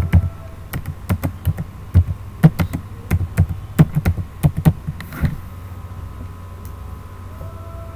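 Typing on a computer keyboard: a quick, uneven run of key clicks that stops about five seconds in, leaving only a faint steady hum.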